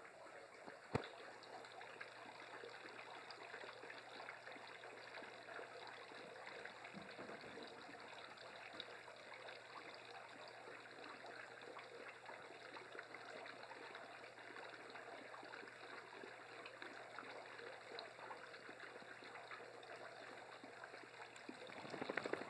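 Small tiered rock deck fountain trickling faintly and steadily, with one sharp click about a second in and a quick flurry of rapid clattering near the end.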